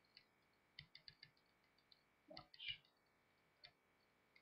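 Computer mouse clicking: a quick run of light clicks about a second in, then a few more scattered single clicks.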